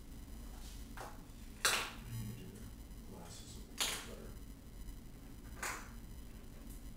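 Several short, sharp taps and clicks at irregular intervals, the loudest about a second and a half in and another near four seconds, with fainter ones around one, three and a half, five and a half and seven seconds.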